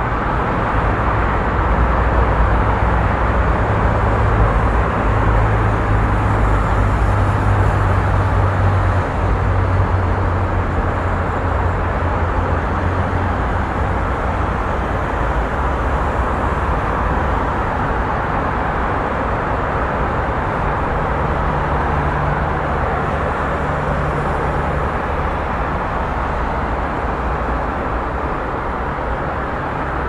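Busy street ambience: a steady wash of traffic noise with a deep engine drone from nearby vehicles that shifts in pitch now and then.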